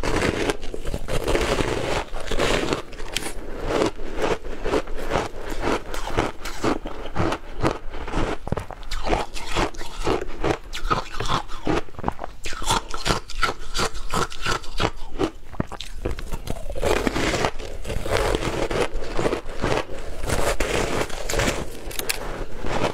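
Biting and chewing a block of frozen shaved ice soaked in passion fruit juice: a dense, continuous run of crisp ice crunches.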